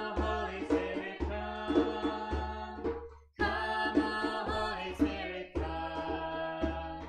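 Worship song sung over instrumental backing with a steady beat; the music drops out briefly about halfway through, then the next phrase begins.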